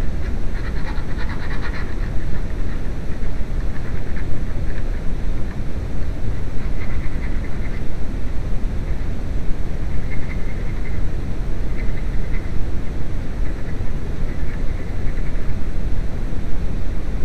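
Steady low rumbling noise throughout, with faint intermittent metallic clinks and scrapes as a clutch pedal assembly is handled in a steel bench vise.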